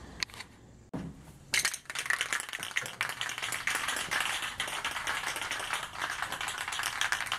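Paint being sprayed: a steady, spitting hiss that starts about a second and a half in, just after a knock.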